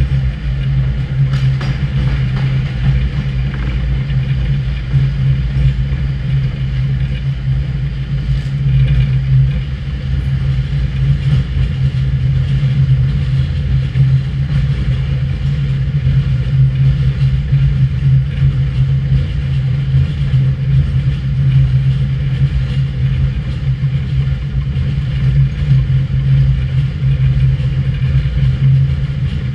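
HÉV suburban electric train running through a tunnel, heard from the driver's cab: a steady low hum over the rumble of wheels on rail. A couple of short clicks come about a second and a half in and again about eight seconds in.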